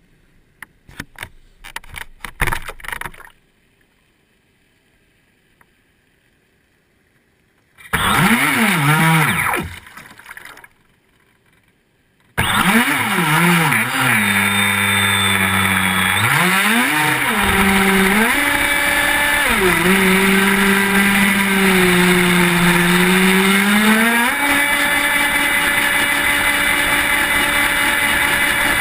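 Radio-controlled speedboat's motor, heard from a camera on its deck: a few knocks, a short burst of throttle with the pitch rising and falling, then from about twelve seconds in continuous running with the pitch rising and falling as the throttle changes, over water rushing past the hull.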